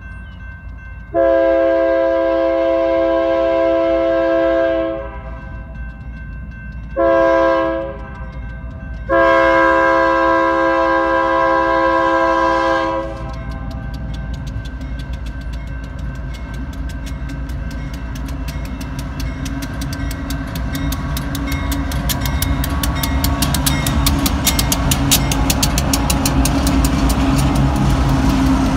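Union Pacific freight train's multi-chime air horn sounding for a grade crossing: a long blast, a short one, then another long blast. After the horn, the diesel locomotives grow steadily louder as they approach and pass close by, with a rapid clicking building up.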